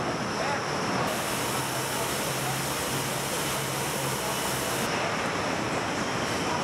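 Car assembly plant hall ambience: a steady din of machinery. A brighter hiss rises over it from about a second in and drops away after about four seconds.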